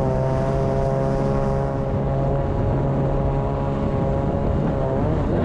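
Kawasaki JS550SX stand-up jet ski's two-stroke twin engine running hard at steady revs under way, breathing through a Coffman's half-pipe exhaust with resonators. Near the end the pitch dips and wavers.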